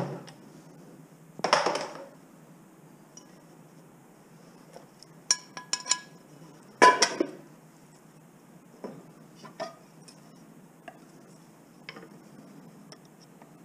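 Metal pots, pans and scrap parts being handled on a workbench: a short scrape about a second and a half in, a few ringing metallic clinks around five to six seconds, then the loudest clank near seven seconds, followed by a few light taps.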